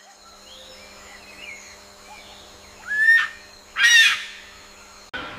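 Peacock calling: two loud calls, about three and four seconds in, less than a second apart, each with a rising pitch, over faint background chirping.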